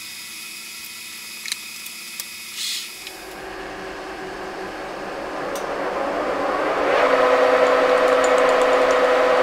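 Manual lathe spindle starting up and running up to speed, then running steadily at 720 rpm with a loud, even hum. Before the start there are a few light clicks and a brief hiss.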